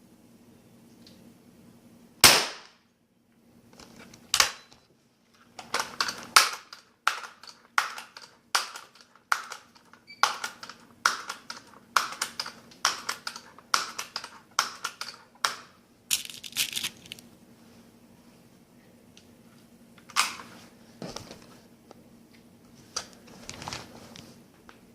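Daisy PowerLine 880 .177 multi-pump air rifle: one sharp shot about two seconds in, then a run of quick pump-stroke clacks, about two a second for some ten seconds, and a few scattered clicks near the end.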